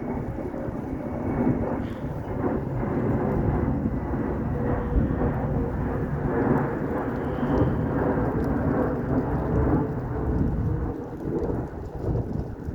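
Airbus A319 airliner's twin jet engines making a loud, steady rumble as it comes in to land, the roar rising and falling slightly without a break.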